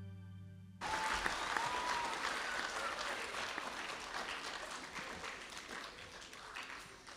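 Music holding a sustained chord cuts off about a second in, and an audience breaks into applause that gradually dies away.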